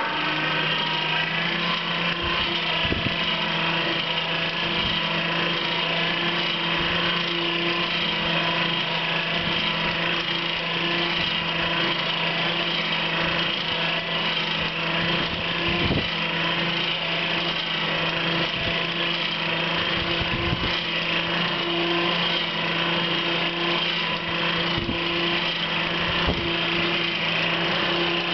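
Coal forge's air blower running steadily, a constant hum with a rushing of air forced through the fire, bringing it up to full heat. A few faint ticks sound over it.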